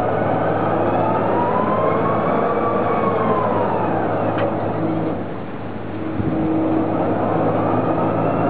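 Ranger, a Kamikaze-type fairground ride, running on a test spin: a steady drive hum with a whine that rises and falls in pitch in slow sweeps. It dips briefly in level about five seconds in.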